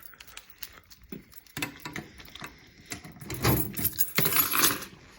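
Steel tool chest drawers being handled on their slides, with tools inside rattling and clinking. A few scattered clicks come first, then louder sliding and clatter in the second half.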